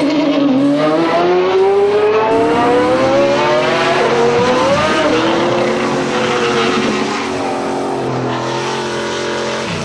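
Dubbed-in sound effect of a revving car engine: its pitch climbs steadily for about four seconds, dips and climbs again, then settles lower and eases off near the end.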